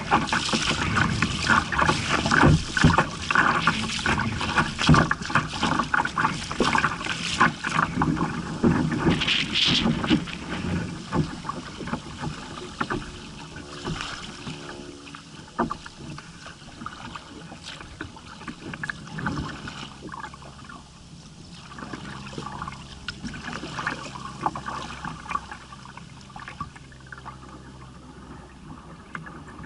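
Choppy water splashing and lapping against a moving kayak's hull, with wind buffeting the microphone; louder and busier for the first ten seconds or so, then quieter.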